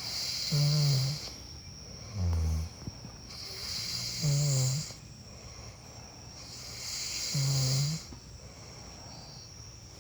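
A person snoring steadily, four snores a couple of seconds apart, some deeper and some higher with a breathy hiss. A steady thin high insect trill runs underneath.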